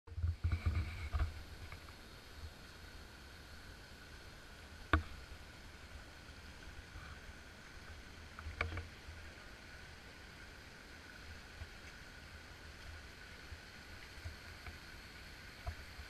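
Rumbling and knocking of an action camera being handled for about the first second, then a steady faint outdoor hiss broken by two sharp clicks, about five and nine seconds in.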